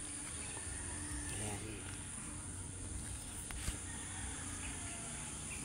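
Steady high-pitched insect chirring over quiet rural outdoor ambience, with a single sharp click about three and a half seconds in.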